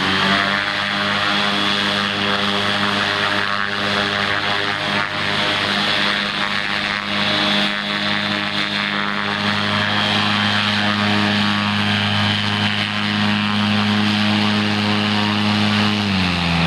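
Propeller engine of a small ultralight amphibian aircraft running steadily while it taxis on grass. Its note drops in pitch near the end as the throttle comes back.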